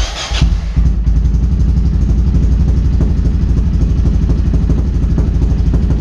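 Yamaha XT660R's single-cylinder engine starting up through a freshly fitted TRS aftermarket exhaust: a brief burst of noise, then the engine catches about half a second in with a quick surge or two and settles into a steady, evenly pulsing idle.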